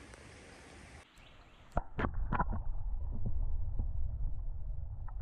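Camera microphone plunged under creek water. Just after a second in, the outdoor sound turns muffled. Several sharp knocks and splashes follow near two seconds in, then a louder, muffled underwater rumble of water stirred by a hand and a released crappie, with occasional clicks.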